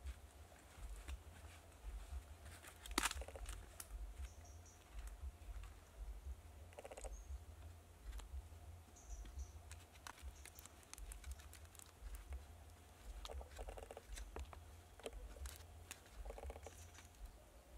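Faint rustling and light clicks of fluffy fibre being pressed by hand into the mouth of a bamboo tube, over a steady low rumble, with a few short high chirps.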